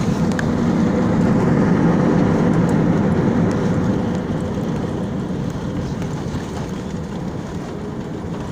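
Cabin noise of an Airbus A320-216 airliner during landing: a loud rumble that swells over the first few seconds and then slowly eases off.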